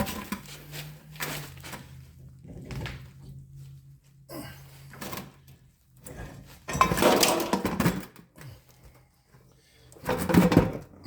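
A series of clunks, knocks and scrapes as objects are handled and set down, the loudest at about seven and ten seconds in. A faint low hum runs through the first half.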